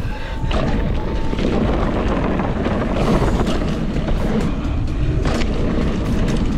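Wind buffeting the microphone of a mountain bike rider going down a dirt trail: a steady rumble with rattling clicks from the bike and trail surface.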